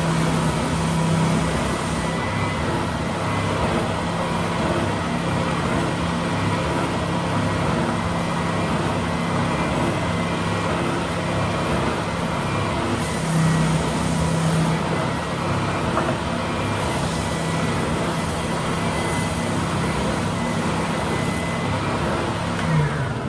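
WEN 6524 oscillating belt sander running steadily with a constant hum while sanding a workpiece. It is switched off at the very end, and its pitch falls as the motor winds down.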